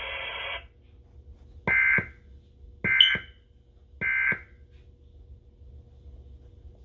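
Emergency Alert System end-of-message signal: three short, harsh digital data bursts about a second apart, the coded sign that the alert has ended.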